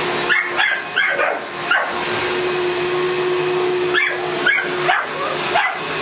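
A Boston terrier gives a string of short barks and yips at a vacuum cleaner, which runs steadily underneath. The barks come in two clusters, one in the first two seconds and another from about four seconds in.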